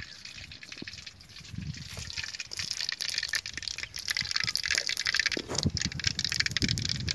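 Oil heating in a black iron kadai over a wood fire, sizzling with dense, fine crackles that grow louder. There are a few low knocks.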